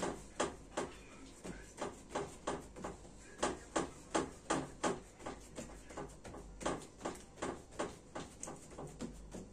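Hands pressing and patting pizza dough out on a wooden tabletop: a quick, even run of dull pats, about two or three a second, that stops near the end.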